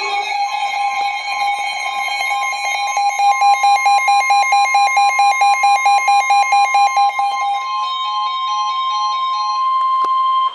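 Emergency Alert System alert tones: two steady high tones sound together, the lower one pulsing rapidly through the middle, over a pattern of higher beeping tones. The tones cut off suddenly just before the spoken warning.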